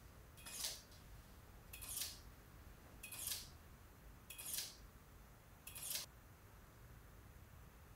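Camera shutter firing five times at an even pace, about one shot every second and a quarter, then stopping.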